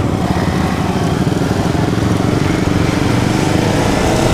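Yamaha R15 single-cylinder motorcycle engine running as the bike pulls away in a group of motorcycles, its pitch rising a little near the end.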